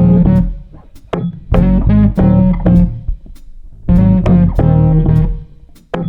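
Background music: plucked guitar with bass, played in short phrases.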